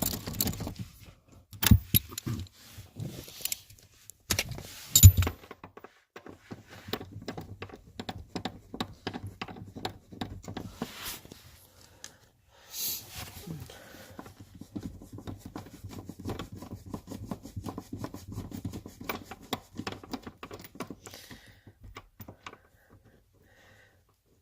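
Hand tools clicking, tapping and clanking on metal as the nuts holding a car's front seat to the floor are worked loose. There are two loud knocks in the first few seconds, then a long run of quick irregular ticking.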